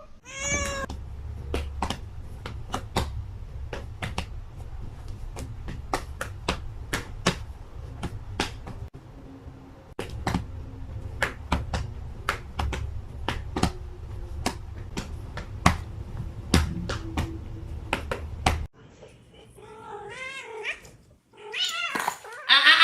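Domestic cat meowing: one short meow at the start and two drawn-out, wavering meows near the end. In between runs a long series of sharp, irregular clicks, a few a second, over a low hum that cuts off suddenly.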